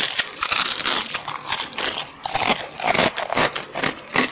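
Dense, crisp crunching and crackling: many sharp ticks close together with a few short lulls.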